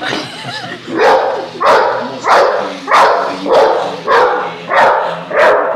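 A dog barking steadily at a small remote-control toy car, about eight barks at an even pace of roughly three every two seconds. This is alarm barking at a toy that frightens it.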